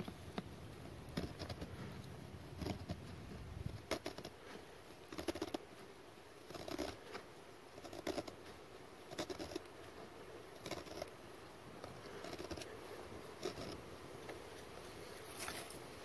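Knife blade shaving a small stick of wood, scraping off fine curls in short strokes about one a second.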